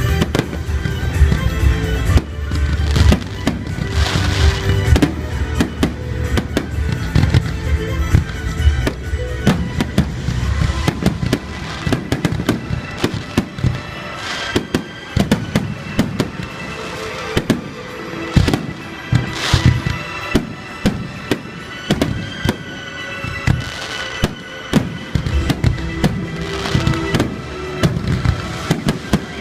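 Fireworks display: a rapid run of shell bursts and crackling bangs, growing denser from about ten seconds in, with music playing alongside.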